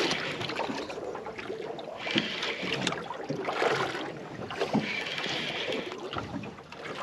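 Water sloshing and wind noise around a small open boat at sea, swelling in uneven gusts, with a few short knocks.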